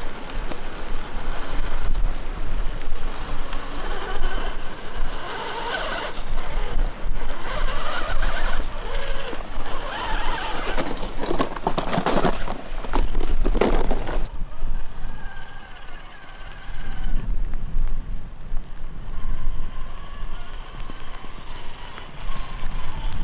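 Electric motor of an RC rock crawler whining, its pitch rising and falling with the throttle as the truck climbs wet rock, with a few sharp knocks a little past the middle as it tips over. Wind rumbles on the microphone throughout.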